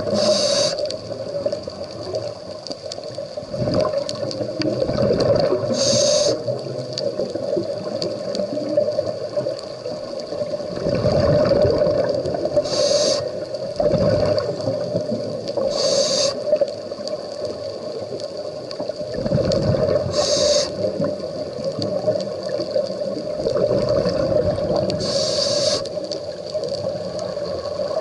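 Scuba diver breathing through a regulator, heard underwater: a short hiss with each inhale and a burst of bubbling with each exhale, a breath every few seconds, over a steady low hum.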